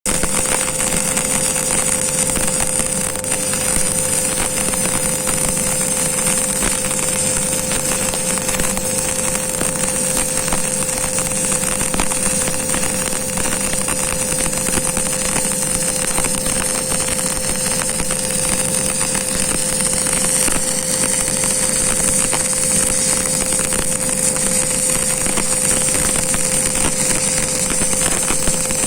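A steady machine noise: a constant hum with a dense crackling hiss over it, unchanging throughout.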